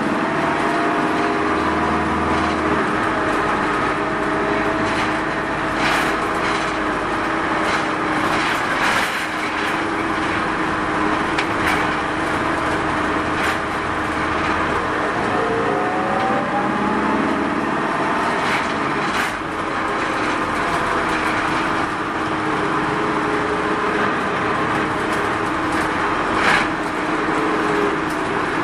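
Mitsubishi Fuso Rosa minibus running, heard from inside the cabin: the four-cylinder turbodiesel's note falls near the start and rises and falls again about halfway through, over steady road noise. Short knocks and rattles come every few seconds.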